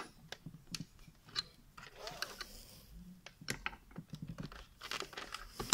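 Screwdriver working the release clip of a monitor stand's metal hinge bracket, with scattered small clicks and scrapes of plastic and metal. A single loud, sharp snap near the end as the clip lets go and the hinge comes free.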